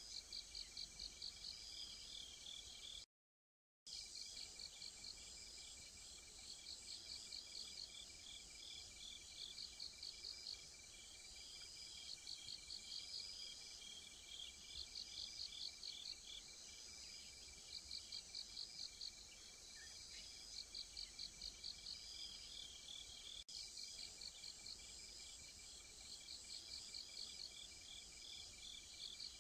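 Insects chirping: trains of rapid pulsed chirps every second or two over a steady high trill. The sound cuts out completely for under a second about three seconds in.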